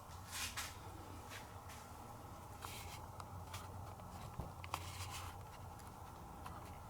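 Faint, scattered light clicks and rustles of handling or moving about, over a low steady hum.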